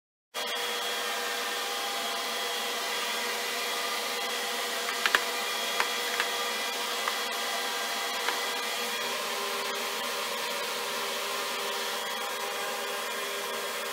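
Workshop power tool motor running steadily with a whirring hiss, with a few sharp ticks about five to six seconds in.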